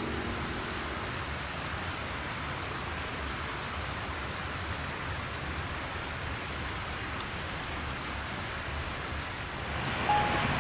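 Steady rushing of a river, an even hiss. Background music fades out in the first second and comes back near the end.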